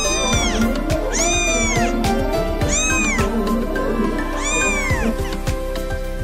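A kitten meowing four times, thin high-pitched calls that rise and then fall, over background music.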